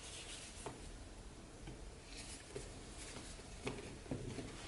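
Faint handling noises as a wallet is put into a leather handbag: a few soft clicks and taps, with a brief rustle about two seconds in.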